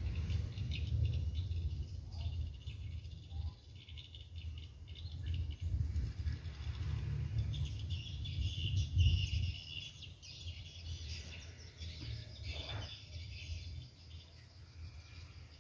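Outdoor ambience: small birds chirping and insects trilling in short high bursts, over a steady low rumble.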